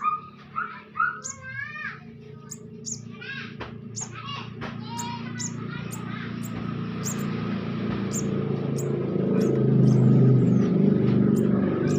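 Baby birds chirping, busiest in the first few seconds, over a steady low hum that grows louder toward the end.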